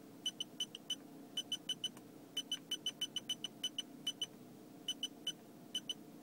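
Electronic beeper of a D1 Spec gauge giving short, high-pitched beeps in quick runs of two to six with brief pauses between runs, the sound of the boost gauge's warning being set with the plus button.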